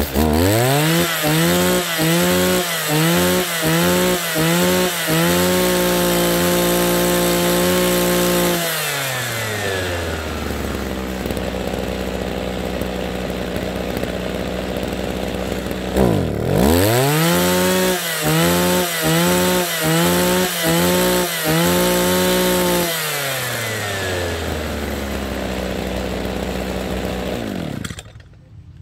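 Kioritz SRE3600 brush cutter's 36cc two-stroke engine given a run of quick throttle blips, then held at high revs and let fall back to idle. After several seconds of idling it is blipped and held high again, drops back to idle, and cuts off near the end.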